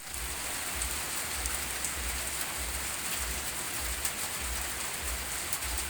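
Heavy rain pouring down steadily as a dense, even hiss, with a low uneven rumble underneath.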